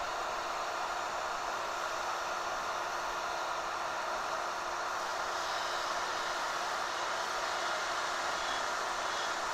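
Seekone electric heat gun with a plastic-welding tip running steadily, its fan blowing a constant hiss over a faint steady hum, heating an HDPE seam and filler rod before they turn molten.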